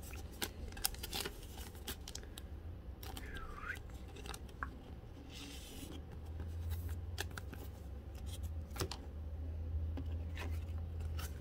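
A trading card slid into a soft plastic penny sleeve: light rustling and scraping of card against plastic, with scattered small clicks and taps as it is handled.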